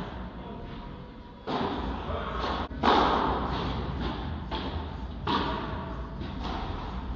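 Padel ball struck by paddles and bouncing in a rally: several sharp knocks ringing on in a large indoor hall, the loudest about three seconds in, over a steady low hum.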